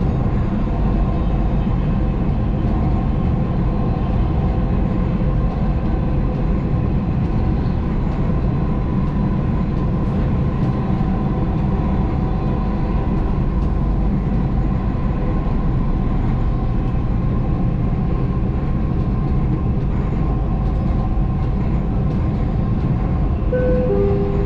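Dubai Metro electric train heard from inside the carriage while it runs along the elevated track: a steady, even rumble with a constant hum. A few brief falling tones sound near the end.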